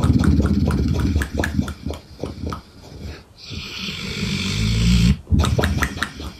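Large dog snoring loudly in its sleep: a long rattling snore, a brief pause about three seconds in, a hissing breath, then another rattling snore near the end.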